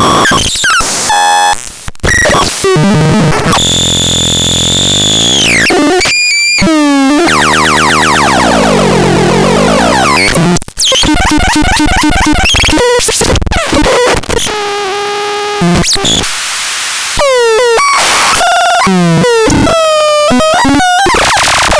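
MEGASTRON MGT 1 electronic noise synthesizer making harsh, glitchy tones that jump and cut off abruptly. It runs through steady buzzing tones, a tone that drops in pitch about five seconds in, and a long sweep that falls and then rises again around the middle.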